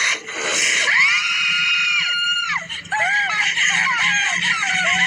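A woman crying: a long, high wail rising and then dropping away about a second in, followed by a run of short, broken sobbing cries.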